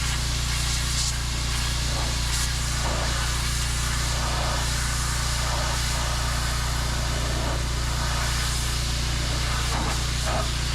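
Pressure washer running steadily, its motor humming under the hiss of the high-pressure water jet spraying onto the play equipment.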